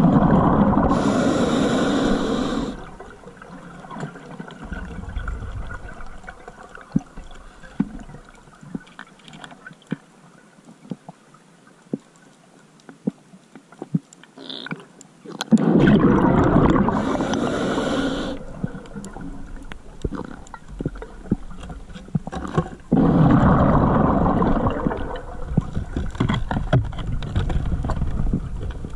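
Underwater recording of a scuba diver breathing through a regulator: three long rushing, gurgling surges of breath and exhaled bubbles, one at the start, one about halfway through and one near the end. Faint crackling clicks fill the quieter stretches between.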